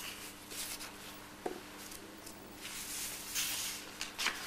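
Loose sheets of paper rustling and sliding as a stack of drawings is leafed through by hand: several short swishes, the longest and loudest near the end, with a small tap about a second and a half in.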